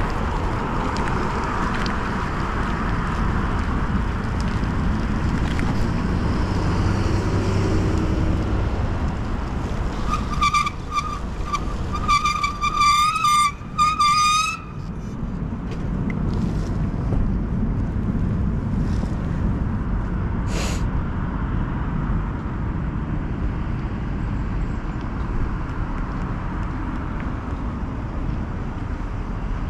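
Steady road and traffic noise with wind, heard from a moving bicycle in city traffic. About ten seconds in, a loud, high-pitched warning signal sounds, first as a few short toots and then as longer wavering ones, and stops about four seconds later.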